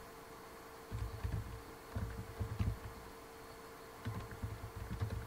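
Typing on a computer keyboard in three short bursts of soft key taps, over a faint steady hum.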